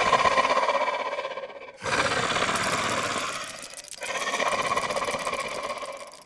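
A rapid buzzing rattle, heard three times in stretches of about two seconds each with short breaks between, fading away near the end.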